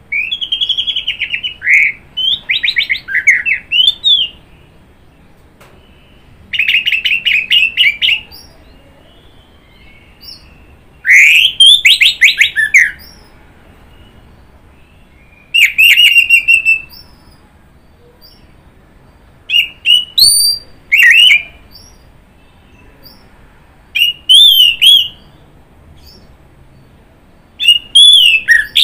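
Orange-headed thrush (anis merah) singing loud phrases of quick, rising and falling whistled notes, each phrase a second or more long, with pauses of a few seconds between them.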